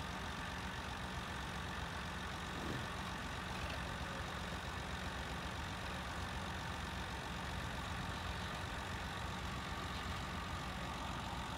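Tractor diesel engines, the nearest a Massey Ferguson 260, running steadily.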